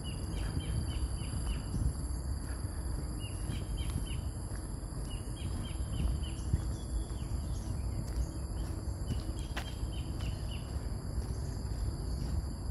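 Tropical forest ambience: a steady high-pitched drone of insects, with a bird calling in quick runs of short, falling notes several times. A low rumble sits underneath.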